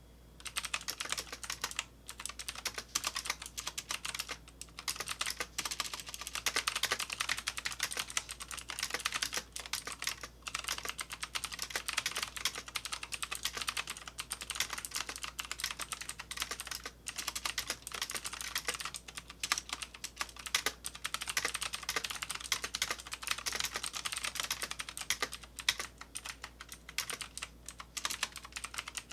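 Fast, continuous typing on a Molong K850 full-size mechanical keyboard: a dense stream of key clicks with a few brief pauses.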